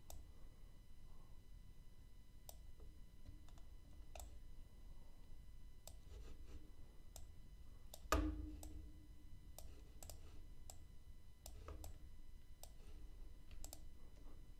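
Faint, scattered clicks of a computer mouse, with one louder thump about eight seconds in.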